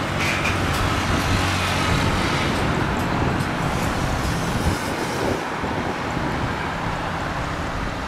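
Steady recorded engine noise, a rushing sound over a low hum, from a toy airliner's electronic sound effect. It starts abruptly.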